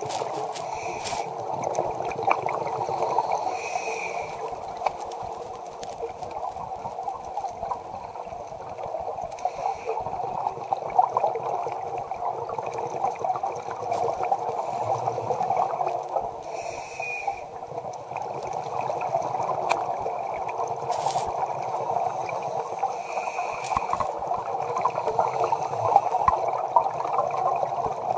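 Underwater sound muffled through a camera's waterproof housing: a steady rushing wash of water with a diver's breathing and bubbling coming back every several seconds, and a few sharp clicks.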